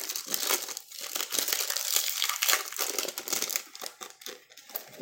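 Foil wrapper of a 2015 Topps football card pack crinkling and tearing as it is opened, a dense run of crackles that eases off near the end.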